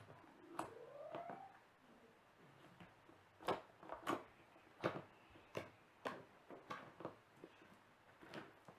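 Fingers poking a homemade glue-and-shaving-cream slime, making a series of faint short pops, roughly one every half second to second.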